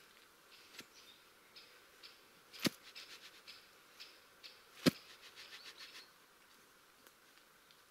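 Two sharp thuds about two seconds apart as a debarked wooden pole is jammed down into a freshly dug hole in sandy soil, with light crunching of soil and pine needles around them.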